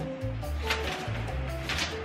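Background music with a steady beat: held bass notes and a light cymbal-like stroke about once a second.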